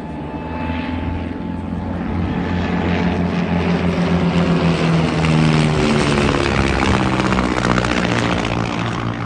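Two biplanes flying in formation pass overhead, their piston engines and propellers droning. The sound grows louder to a peak about five seconds in, and the engine note drops in pitch as they go past.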